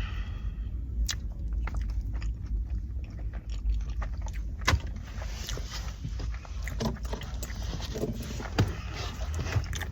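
Close-up eating sounds: chewing a bacon and egg muffin sandwich, with scattered wet mouth clicks and smacks, one sharper click about halfway, and a few short low mouth sounds near the end, over a steady low background rumble.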